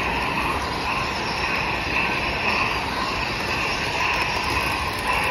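Steady running noise of a model train layout, with a model Union Pacific Big Boy steam locomotive rolling along the track amid the hall's background din; no clear rhythm.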